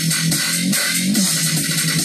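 Unfinished dubstep track playing back from an Ableton Live session. A bass line slides down in pitch again and again under busy, hissy high percussion.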